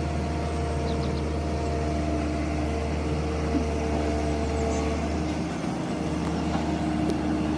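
A small motor running steadily: a low, even hum with a few held tones above it and no change in speed.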